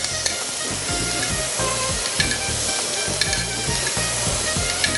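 Mutton liver pieces searing in hot butter in a stainless-steel pan, a steady sizzle, while a wooden spoon stirs them with a few light knocks against the pan.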